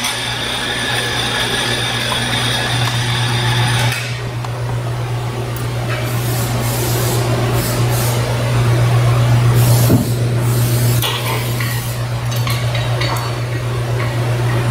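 Metal tools and parts clinking and rattling irregularly as they are handled on a steel workbench, over a steady loud low hum of shop machinery. A thin high whine sits on the hum for the first few seconds and then stops.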